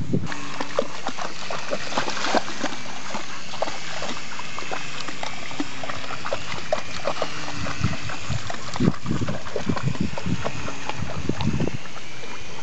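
Rottweiler wading and splashing in shallow sea water: an irregular run of short splashes, with some dog sounds mixed in.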